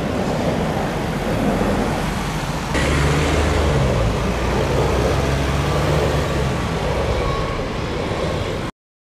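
Passenger trains rolling over a railway bridge above a road, mixed with road traffic passing through the underpass below; a steady rumble with a low hum. About three seconds in the sound jumps louder as a double-deck electric train passes, and it cuts off suddenly near the end.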